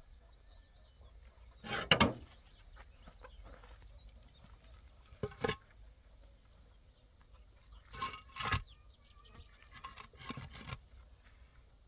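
Hollow concrete blocks knocked and scraped against each other and the ground as they are lifted and set in place in a foundation course. Several separate knocks, the loudest about two seconds in, with pairs of knocks around the middle and a cluster near the end.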